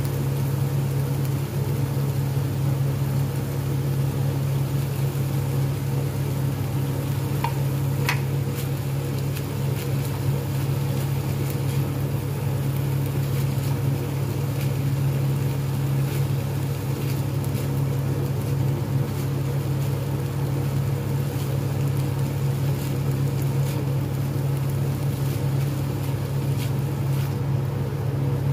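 Minced meat sizzling in a frying pan while a spatula stirs it, with scattered light scrapes and ticks against the pan. A steady low hum sits under it throughout and is the loudest part.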